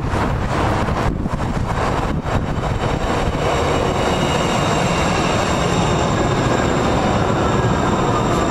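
TriMet MAX light rail train pulling into the station and slowing to a stop, with a steady rumble of wheels on rail. A high electric whine from its drive holds steady, and a few tones fall gently in pitch as it brakes.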